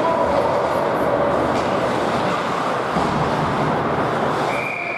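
Steady din of an ice hockey arena: crowd chatter and game noise mixed together, with a steady high tone coming in near the end.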